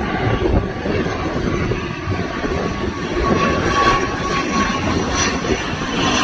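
Airliner's engines running, a steady high whine over a broad rushing noise that grows a little louder about three seconds in.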